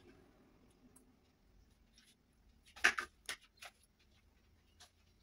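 Quiet room tone, then a short cluster of four sharp clicks and knocks about three seconds in, and one faint tick near the end.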